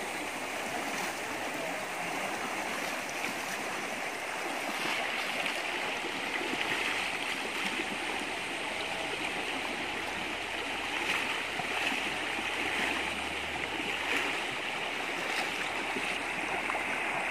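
Shallow rocky stream rushing and gurgling over stones and a small cascade, a steady wash of running water.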